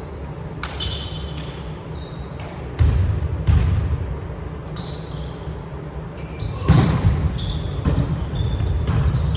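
Volleyball play on an indoor court: the ball is struck hard four times, with short high squeaks between the hits over a steady low rumble.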